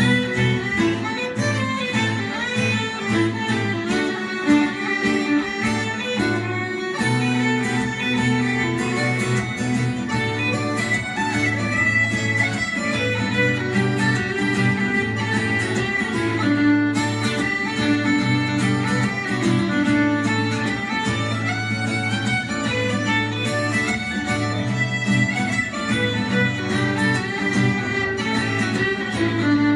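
Irish traditional dance tunes played live on fiddle and uilleann pipes over a steadily strummed acoustic guitar.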